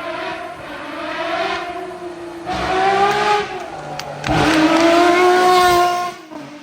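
Rally car engine at high revs, its pitch climbing and dropping as the driver accelerates, lifts and shifts. It gets louder in two surges, about two and a half and four seconds in, then falls away near the end.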